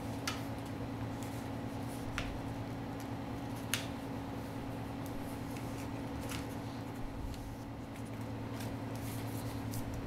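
Hands folding and pressing duct tape over the edge of a paper envelope: a few sharp ticks and light crinkling of tape and paper, over a steady low hum.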